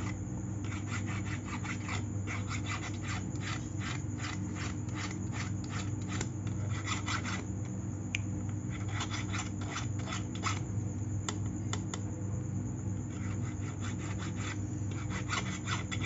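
A hand file rasps in quick back-and-forth strokes across the side of a handmade gold ring held against a wooden bench pin, pausing briefly a few times. This is the finish filing of the ring's sides before buffing.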